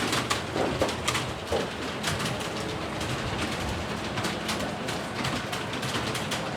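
Many computer keyboards being typed on at once, a rapid, irregular patter of key clicks from students taking a timed typing test.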